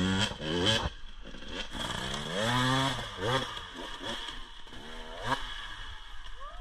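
Dirt bike engine revving hard in repeated bursts, rising and falling in pitch, as the bike claws up a steep muddy bank; the revs fade out near the end.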